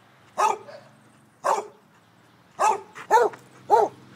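Basset hound barking: five loud barks, the first two about a second apart, then three quicker ones about half a second apart.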